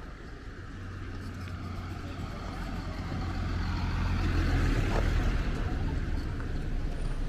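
A motor vehicle's engine running with a low rumble, growing steadily louder.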